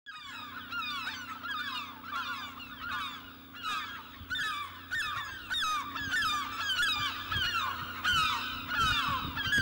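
A flock of birds calling, many short overlapping calls one after another with no break, over a faint steady low hum.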